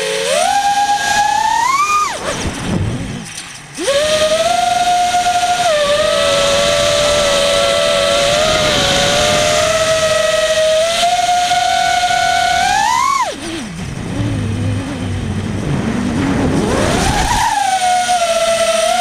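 Lumenier brushless motors spinning Dal Cyclone 5045 propellers on a small FPV racing quadcopter, heard from the onboard camera as a high, steady whine. The pitch climbs sharply as the throttle is punched about two seconds in and again around thirteen seconds. It drops away after each climb as the throttle is cut, then comes back up.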